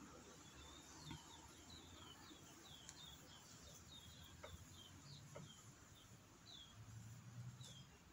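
Faint, repeated bird chirping: a string of short, high, falling notes at about two to three a second, with a few soft clicks and low rustles underneath.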